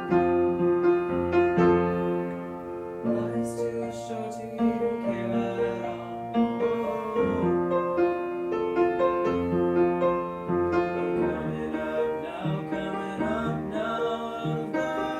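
A song played live by one performer: an instrumental passage of chords on a keyboard instrument, held notes changing in a steady rhythm.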